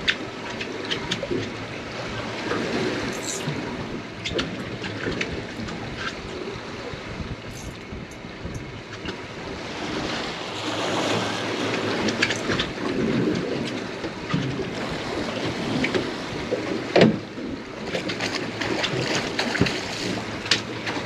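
Water slapping and lapping against a small boat's hull, with wind on the microphone and scattered clicks and knocks, one sharp knock about three-quarters of the way through.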